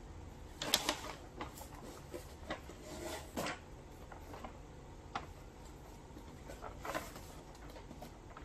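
Kraft-paper shopping bag rustling and crinkling as a hand reaches in and shifts it, in irregular bursts of crackle, the loudest about a second in and another near seven seconds.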